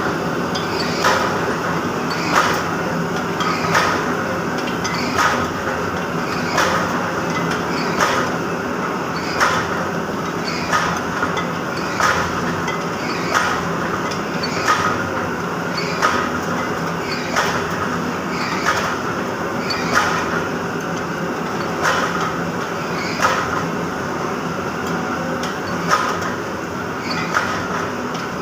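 A 50-ton up-stroke friction screw press forging brass, striking with a sharp clank about every second and a half over the steady hum of the running machine.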